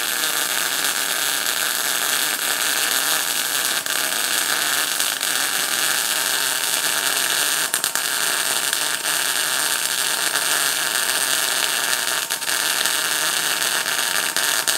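MIG welding arc from a PTK Rilon MIG 200 GDM semi-automatic welder, feeding 0.8 mm wire under CO2 shielding gas on 3 mm steel. It makes a steady, continuous hiss with small crackles, held without a break through a vertical-down weld pass.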